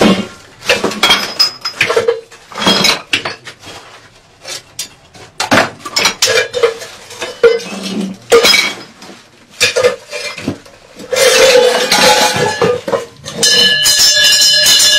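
Irregular clattering and clinking knocks of pots and metal objects being struck and thrown about as a shrine is smashed up. A steady ringing of several tones joins near the end.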